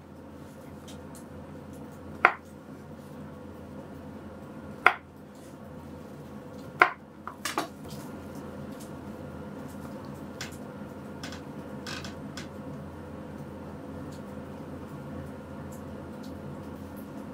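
Kitchen knife chopping on a wooden cutting board, trimming garlic cloves: sharp knocks a couple of seconds apart, the last two close together. After that, fainter small clicks as cloves are handled and pushed onto a wooden skewer, over a low steady hum.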